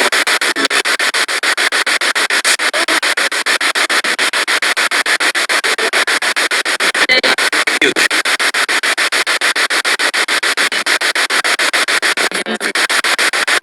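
Spirit box rapidly sweeping radio stations: loud hissing static chopped into many short pulses a second, with brief snatches of radio sound caught now and then.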